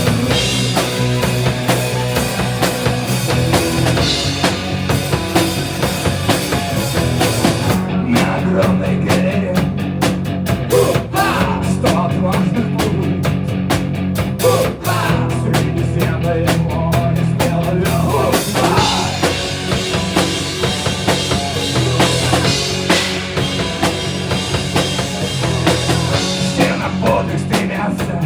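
A rock band playing live, an instrumental passage with drum kit and guitar. The cymbals drop out from about 8 seconds in and come back about 18 seconds in, while the steady drum beat carries on.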